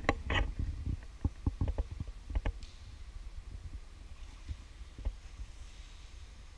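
A run of short, dull knocks and clicks over a low rumble, thinning out after about two and a half seconds, with one more knock about five seconds in.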